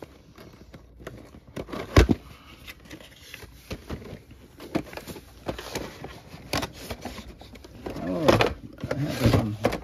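Sealed cardboard box being pulled open by hand: cardboard scraping and rustling as the taped flap comes up, with a sharp snap about two seconds in.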